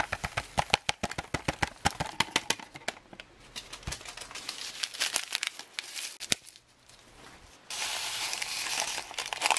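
Plastic-foil ration sachets crinkling in the hands, then a small instant-coffee stick packet being torn open. Near the end, a steady rustling hiss for about a second and a half.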